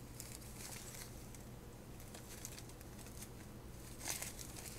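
Faint rustling of small plastic zip bags of diamond painting drills being handled, with a brief louder rustle about four seconds in.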